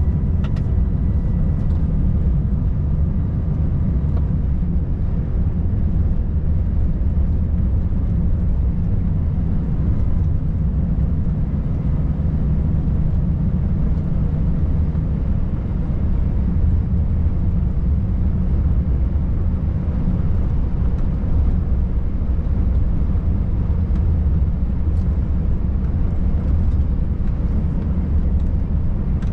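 Volvo FH540 truck running, its 13-litre six-cylinder diesel and the vehicle noise making a steady low rumble.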